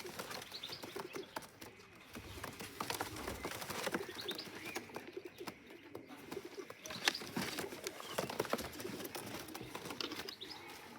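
Young racing pigeons cooing softly in a loft, with scattered sharp clicks and rustles throughout.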